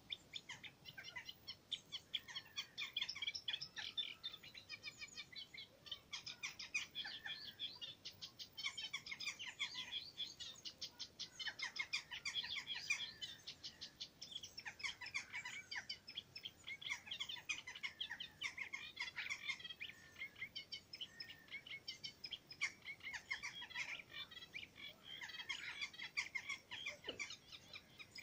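A warbler hidden in a reedbed sings a long, rapid, chattering song of quickly repeated notes, going on almost without a break and pausing only briefly now and then.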